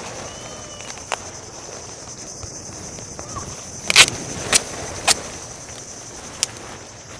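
Steady high-pitched insect chorus in the background, with a few sharp knocks or taps from handling gear, the loudest about four seconds in and smaller ones near one, four and a half, five and six and a half seconds.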